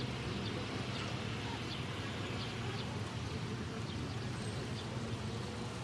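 Village outdoor ambience: small birds chirp in short, repeated notes over a steady low hum.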